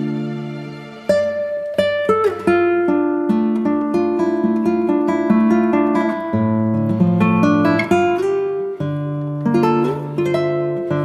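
Background music: acoustic guitar plucking notes and chords, with a held chord fading out in the first second before the picking resumes.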